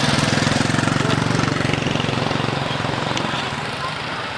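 Motor vehicle engine idling close by with a rapid low pulse, fading away over the last couple of seconds.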